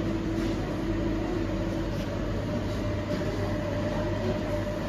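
Steady vehicle hum inside a car's cabin, the engine and air conditioning running, with a faint steady tone over it.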